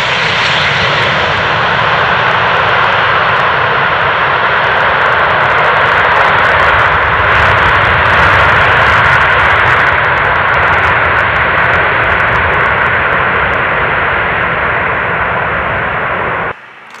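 Lockheed L-1011 TriStar's three Rolls-Royce RB211 turbofans running loud as the airliner rolls down the runway: a steady jet roar with crackle. The sound cuts off suddenly near the end.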